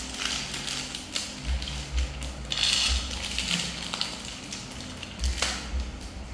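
Small handling noises from monkeys picking green peas off a plate and eating them: irregular clicks, rustles and crunches.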